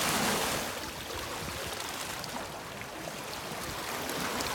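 A hooked fish splashing at the surface close to the bank in about the first half-second, over the steady wash of river water and wind.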